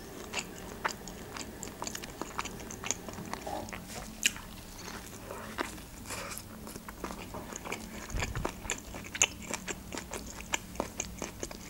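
Close-miked biting and chewing of a meat shawarma wrapped in toasted flatbread: a steady stream of small crunches and mouth clicks.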